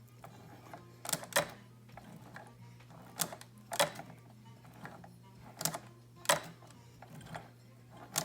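Singer 211G151 industrial needle-feed sewing machine turned slowly by hand, stitching through three layers of leather: sharp mechanical clacks, often in pairs, every second or two as each stitch is made. A steady low hum runs underneath.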